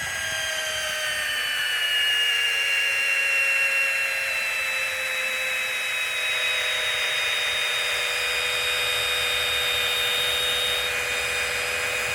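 Brushed Milwaukee 2401-20 cordless screwdriver driving an 8-inch self-drilling fastener into wood: a steady motor whine that sags a little in pitch over the first few seconds as it takes the load, then holds level.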